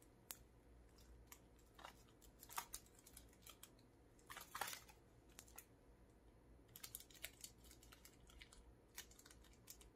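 Faint scattered clicks and crinkles of fingers picking at the cellophane seal on a perfume box, with a louder cluster a little past halfway.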